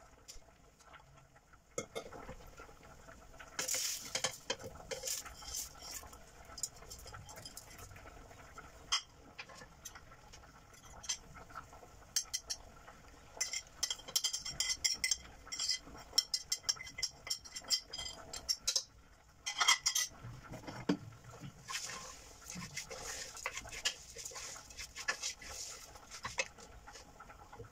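Utensils clinking and scraping against a stainless steel pot in irregular bursts as ingredients go in, with a wooden spoon stirring raw lentils in the pot near the end.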